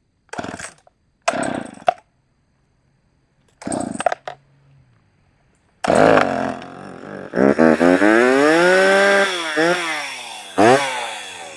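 Poulan 330Pro two-stroke chainsaw being pull-started. Three short bursts of the starter pull come first, then the engine catches about six seconds in and runs, revved up and down a few times by the throttle.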